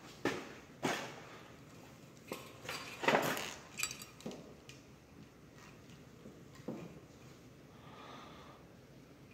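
Irregular knocks and clatters of things being bumped and handled, about seven in all, the loudest a longer clatter about three seconds in.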